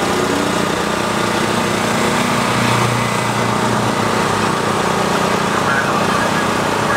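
A car engine idling steadily, with no revving or change in pitch.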